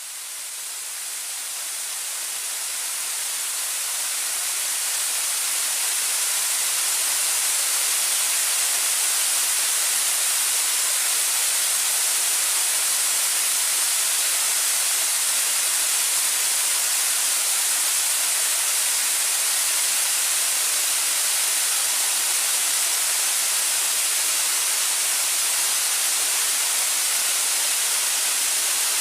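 Waterfall: a steady rush of falling water with a strong hiss, fading in over the first several seconds.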